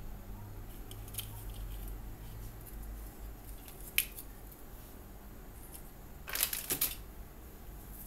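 Handling noise from a small electronic controller board and its plastic sensor probe: a few faint clicks, one sharp plastic click about four seconds in, then a short burst of crinkling near the end as the board is set down on its anti-static bag. A low steady hum runs underneath.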